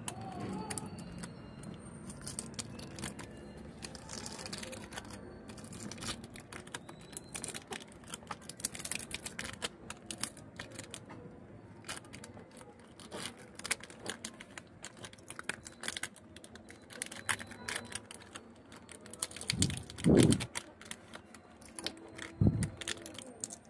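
Irregular small clicks and taps of fingers and fingernails pressing and prying at a Realme C12 smartphone's plastic frame and LCD flex cable. Twice near the end a man's voice gives a brief murmur, the first the loudest sound.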